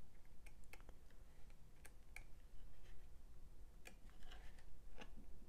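Pages of a paper booklet being flipped: faint, irregular ticks and soft rustles as each page turns.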